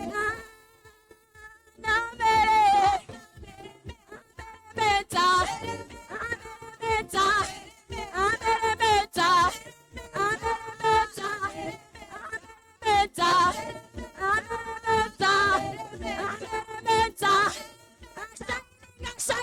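A voice singing a praise song in phrases with short breaks, the pitch wavering and sliding within each phrase.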